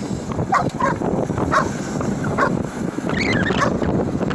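Dog whining and yipping in short pitched calls, with a longer wavering whine about three seconds in, over wind rumbling on the microphone.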